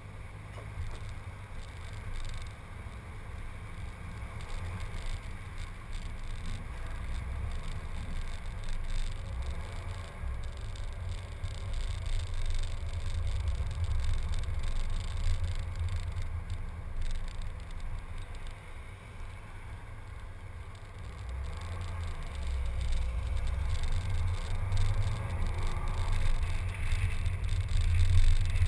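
A car driving, picked up from its hood: a low, fluttering rumble of engine, tyres and wind that grows louder in the last few seconds as the car speeds up on the open road.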